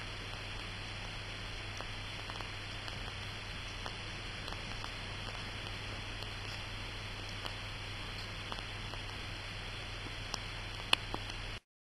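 Steady hiss of room tone with a low hum and faint scattered small ticks, and one sharper click near the end; the sound cuts off abruptly just before the end.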